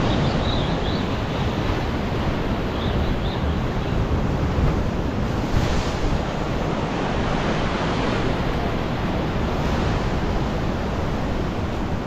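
Ocean surf washing and breaking against a rock ledge, with wind rumbling on the microphone; one wave comes in a little louder about halfway through.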